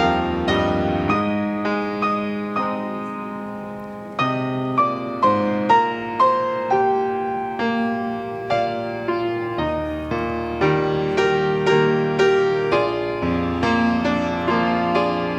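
Piano playing a slow, gentle accompaniment of soft chords. One chord is held and fades away from about one to four seconds in, then notes are struck about twice a second.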